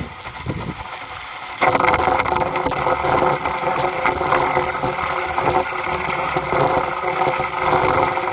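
Wood scraping and crackling in a dense, busy rasp, getting suddenly louder about one and a half seconds in.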